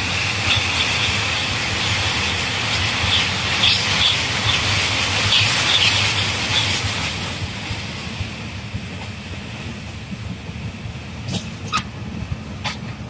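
LHB passenger coach running at speed over a steel truss rail bridge: a loud rumble and rattle of wheels on the bridge, with short high squeaks. The level drops about eight seconds in as the coach comes off the bridge, and a few sharp clicks follow near the end.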